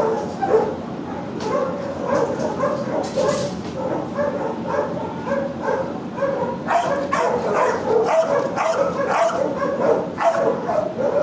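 Many shelter dogs barking and yipping at once in a continuous, overlapping din of kennel noise.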